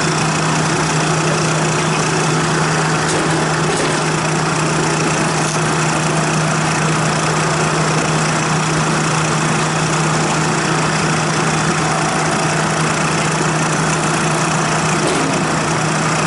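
Refrigerant recovery machine running steadily, pulling refrigerant out of the rooftop system, with a constant low hum.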